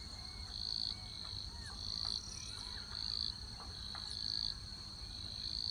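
A steady, high-pitched insect trill that swells in loudness about once a second. Faint, scattered bird chirps sound behind it.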